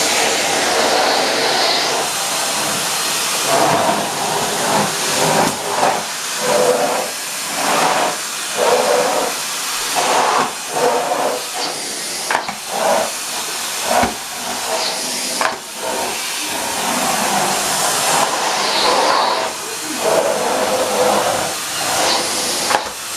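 Henry HVR 160-11 bagged cylinder vacuum cleaner running, a steady rush of air that swells and dips every second or so.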